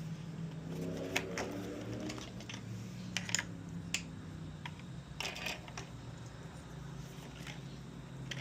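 Scattered small clicks and light rattles of plastic RC truck parts and screws being handled and fitted, over a steady low hum.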